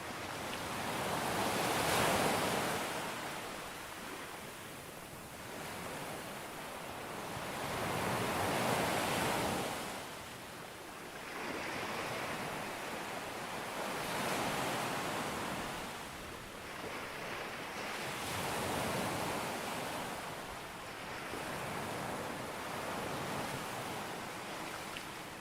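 Ocean surf breaking on a beach: waves swell and wash in roughly every five seconds, the loudest about two seconds in.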